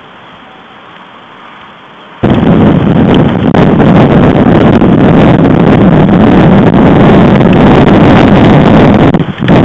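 Wind buffeting a nest webcam's microphone and overloading it. After a faint background hiss, a loud rumbling noise cuts in abruptly about two seconds in and holds, dipping briefly near the end.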